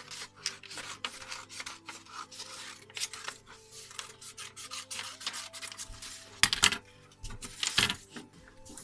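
Scissors cutting paper in a quick run of scratchy snips, the sheet rustling as it is turned, with two louder rustles past the middle.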